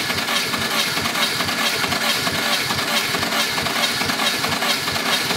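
Starter motor cranking the Lada Niva 21213's four-cylinder carburettor engine with no ignition, a rapid, even chugging of compression strokes, while a compression gauge on one cylinder builds to its reading.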